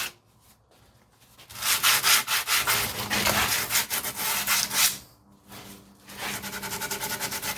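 Sandpaper rubbed by hand over the rear parking brake shoes in quick strokes, sanding the shoes down for new rotors. Two spells of sanding, with a short pause about five seconds in.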